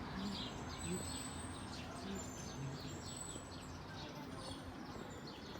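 Birds chirping: many short, quickly falling notes, several a second, over a steady background hiss.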